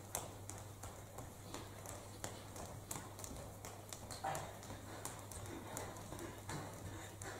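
Irregular light taps and knocks as performers move with metal-framed chairs across a stage floor: footfalls and chair legs and frames knocking, a few to several a second. A steady low hum runs underneath.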